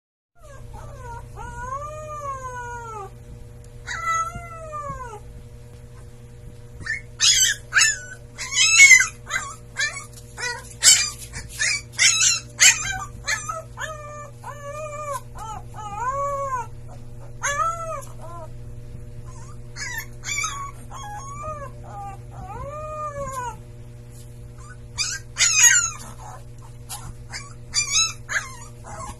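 Husky puppy howling: a long series of short, thin howls that rise and then fall in pitch, with a quicker run of sharper yips and whimpers in the middle. A steady low hum runs underneath.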